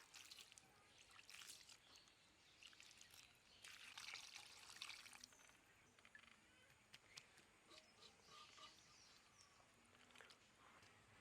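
Faint cooking sounds: a brief pour or splash of liquid about four seconds in, among scattered light clicks.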